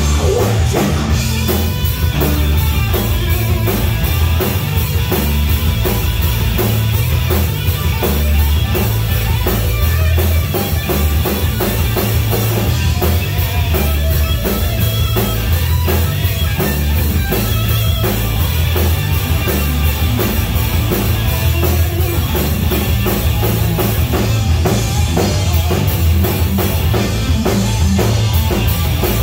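Live rock band playing at full volume: electric guitar, electric bass and a drum kit keeping a steady driving beat.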